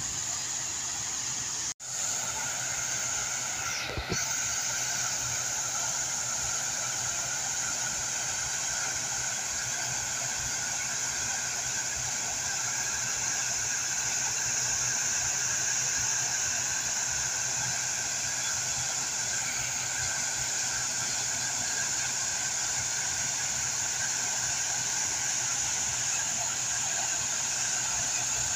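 Water splashing steadily from a large tiered stone fountain, a constant even rush of falling water. The sound cuts out for an instant about two seconds in.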